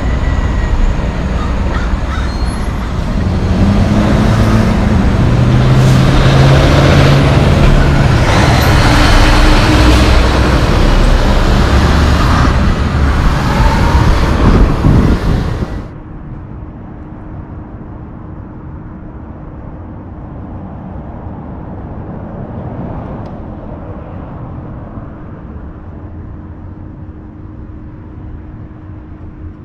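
A semi tractor hauling a tanker B-train passes close by, its diesel engine running and its many tires and trailer axles rumbling loudly on the road. About halfway through, the sound cuts off abruptly. It is replaced by a much quieter, steady low diesel rumble with a faint hum from an empty Freightliner log truck, its trailer piggybacked.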